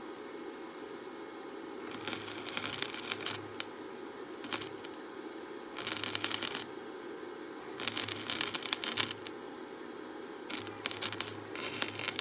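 Electric arc welding in four short runs, each about a second long. Each run is a loud, sputtering crackle over a low hum from the welder.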